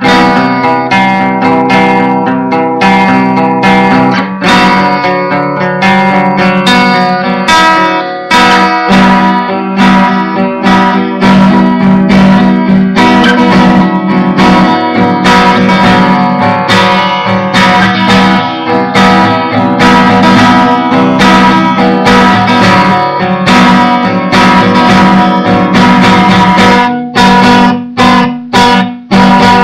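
Acoustic guitar being strummed and picked in a continuous improvisation, picked up by a webcam microphone. From about 27 seconds in the playing breaks into short, separated chord strokes.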